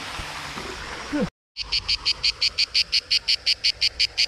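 A steady hiss, then an abrupt break, then an animal calling in a fast, even train of high chirps, about six or seven a second.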